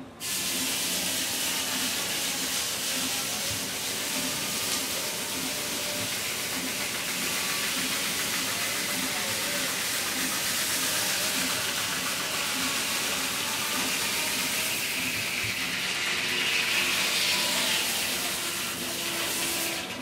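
The circular head saw of a 1903 Port Huron sawmill, belt-driven by a Reeves 13 HP steam traction engine, cutting through a large log: a loud, steady rushing noise that starts suddenly as the blade enters the wood and stops just before the end as the cut finishes. A faint low beat, about three a second, runs underneath.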